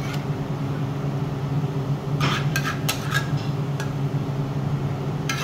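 A metal ladle scrapes and clinks against a metal pan several times about two to three seconds in, spooning thick curry sauce into a bowl, with one more click a little later. A steady low machine hum runs underneath.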